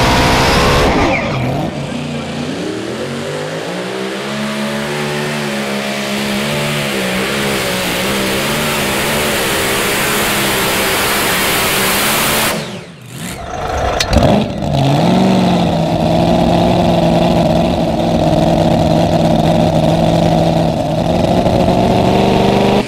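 Pulling tractor engine running hard. Its note drops about a second in, climbs back and wavers, then breaks off briefly just past halfway before running steadily again.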